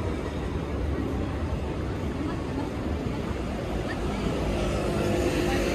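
City street ambience: a steady low rumble of traffic with faint voices of passers-by, a little louder near the end.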